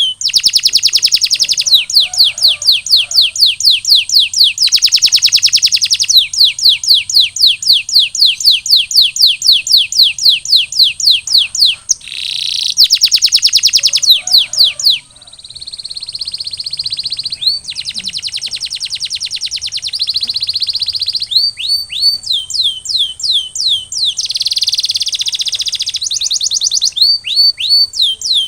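Canary singing in long rolling trills: rapidly repeated sweeping notes that switch to a new phrase every few seconds.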